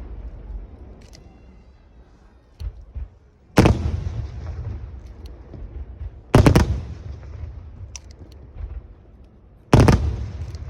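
Aerial fireworks shells bursting: three loud bangs about three seconds apart, each followed by a rolling echo that dies away, with a few fainter pops in between.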